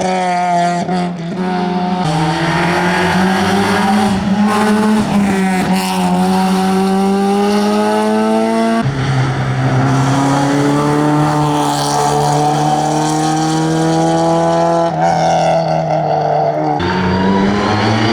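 Classic rally car engine pulling hard under full throttle, its pitch climbing steadily through the revs and dropping sharply at an upshift about nine seconds in and again near the end.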